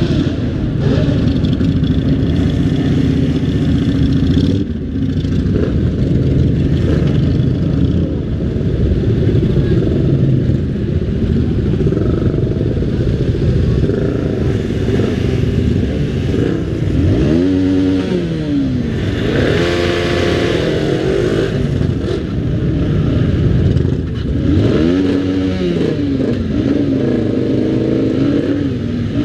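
Several motorcycle engines running at low speed in a slow-moving group, with a steady mixed engine rumble. Twice, once midway and again about three-quarters through, an engine revs up and back down.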